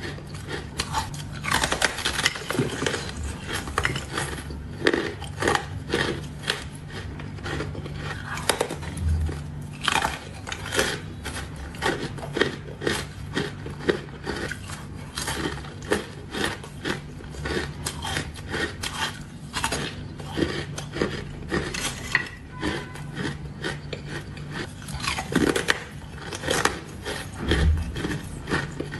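Close-up biting and chewing of soft, powdery frozen ice: a long run of irregular crunches, over a faint steady low hum.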